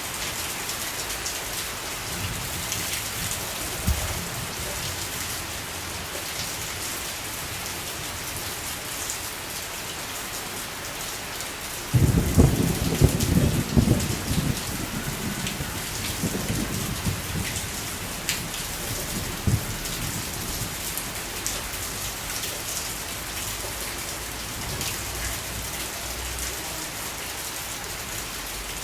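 Steady rain falling, with scattered drops pattering close by. About twelve seconds in a low rumble of thunder breaks in suddenly and fades over a few seconds.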